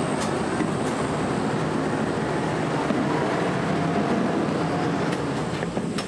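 A WWII DUKW amphibious truck running steadily under way on land, heard from inside its open cab: engine and drivetrain noise with a few light knocks. Its propeller is out of gear after the vehicle has climbed out of the water.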